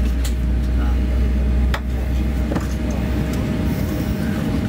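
Cabin noise inside a Boeing 737-800 moving slowly on the ground: a steady rumble with a constant hum, a few light clicks and knocks, and faint passenger voices. The deepest part of the rumble drops away a little under two seconds in.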